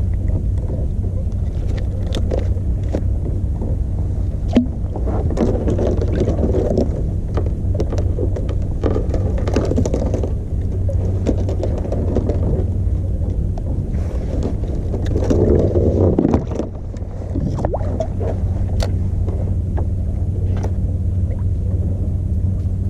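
Small 2-horsepower outboard motor running at a steady speed, with water rushing and splashing against the kayak's hull at times.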